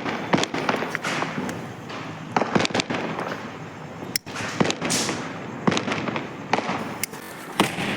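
Sky shot aerial firework going off: a fast, irregular string of sharp bangs and pops over a continuous crackling hiss.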